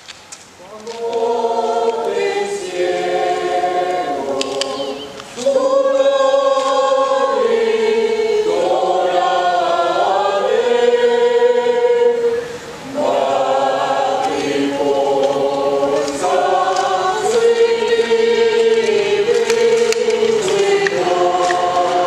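Mixed choir of men's and women's voices singing a Spanish Christmas carol (villancico) in harmony. The singing begins about a second in, grows louder around five seconds in, and breaks off briefly for a breath about halfway through.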